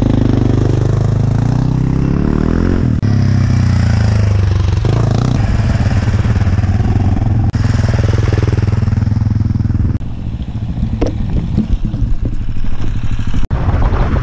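AJP PR7 adventure motorcycles' single-cylinder engines running and revving, the pitch rising and falling as the bikes pull away. From about ten seconds in the engine sound gives way to rougher wind and road noise with a few knocks.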